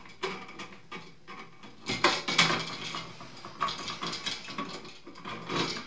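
Irregular metallic clicks and rattles of stiff electrical wires being bent and twisted together by hand inside a metal switch box.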